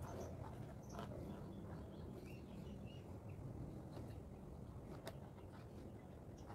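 Faint outdoor ambience: a steady low background rumble with a few faint bird chirps near the middle, and one sharp click about five seconds in.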